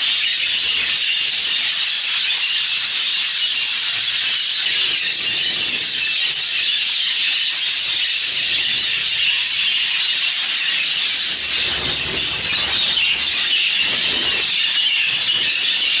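Steady high-pitched chatter of many budgerigars in a flock, calling and twittering over one another without a break.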